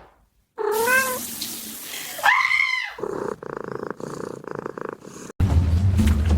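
A cat meowing twice, each a rising-and-falling cry over a noisy hiss, followed by a rapid pulsing sound. Music with a steady bass comes in about five seconds in.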